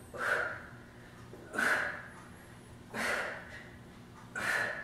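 A woman breathing hard, with sharp forceful exhalations in a steady rhythm, four of them about a second and a half apart, one with each crunch of a core exercise.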